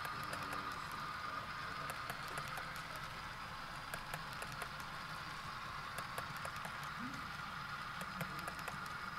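HO scale model covered hopper cars rolling past on the track: a steady rolling whir with light, irregular clicks.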